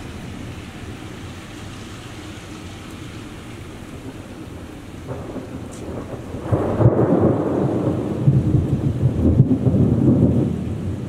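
Thunder rumbling over steady rain: the rumble builds about halfway in, stays loud for around four seconds, then eases off near the end.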